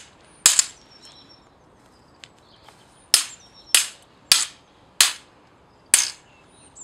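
Sword blades clashing in a practice fight sequence: one sharp clang about half a second in, then a run of five quick clangs, one every second or less, from about three seconds in.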